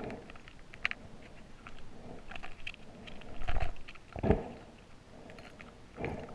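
Muffled underwater knocks and clicks picked up by a camera in its waterproof housing, with two heavier low thumps in the middle.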